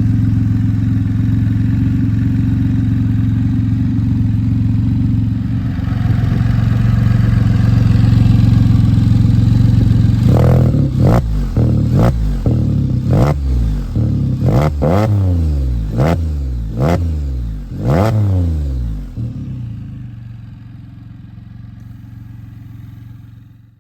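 2022 Can-Am Spyder F3-S three-cylinder engine breathing through an RLS Assassin Series full exhaust with cat delete and muffler. It idles steadily for about ten seconds, then is blipped about eight times in quick succession, each rev climbing and falling back. After that it settles back to idle and fades near the end.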